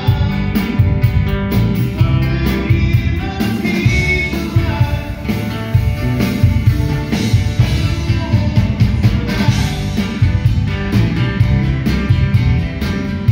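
Live rock band playing with electric bass, guitars, drum kit and keyboard, a steady beat driving a full, loud mix.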